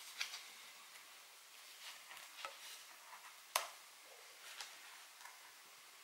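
Faint small clicks and taps of fingers working a laptop screen's display cable connector and plastic parts, with one sharper click about three and a half seconds in.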